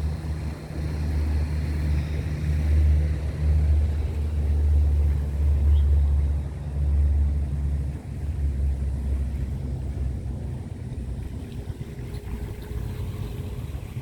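Deep, steady engine drone of a large ship passing offshore. It is loudest for most of the first half and eases off in the second.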